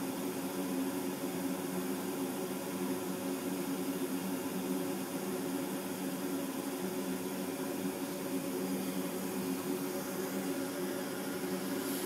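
80% gas furnace running with its draft inducer motor on and the burners lit: a steady hum with a constant low drone. This is the heat-up delay after ignition, with the blower not yet running.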